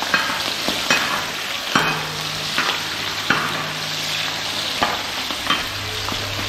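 Slit green chillies frying in hot coconut oil in a large pan: a steady sizzle with sharp crackles about once a second as they splutter. A low steady hum runs underneath.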